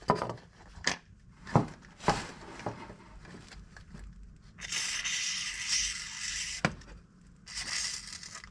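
A WD-40 aerosol can spraying: a steady hiss of about two seconds begins roughly halfway through, and a shorter burst follows near the end. Before that come a few sharp clicks and knocks of the can and parts being handled.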